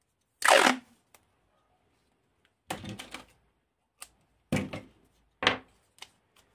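Black insulation tape being pulled off its roll in a series of short rasping rips, about six in all, the first and loudest about half a second in.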